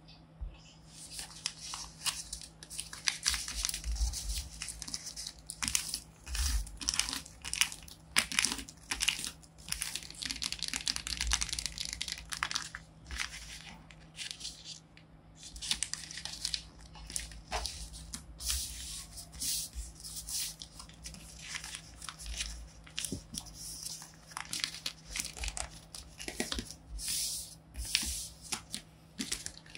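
Paper and tape-covered paper crinkling and rustling in irregular handfuls as a folded paper blind bag is unfolded and smoothed flat, with long fingernails tapping and scratching over the taped surface. A few soft thumps of hands on the table come about four and six seconds in.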